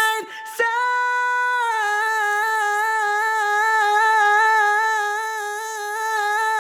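A woman's sung vocal, processed with EQ, reverb, compression and a multiband compressor whose bands are being adjusted as it plays. After a short note, one long note is held, stepping down slightly about two seconds in and then wobbling steadily, with a dip in level near the end.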